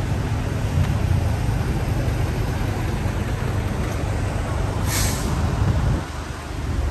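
City street traffic with a heavy vehicle's engine rumbling steadily, and a short hiss of air brakes about five seconds in; the rumble falls off about a second later.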